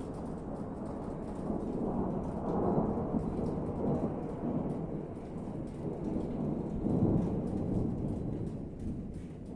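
Thunder rumbling over steady rain, swelling twice, about two seconds in and again around seven seconds.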